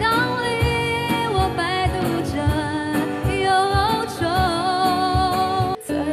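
A woman singing a Mandarin pop ballad, backed by a band with a steady beat. Near the end the song breaks off for a moment and another woman's singing begins.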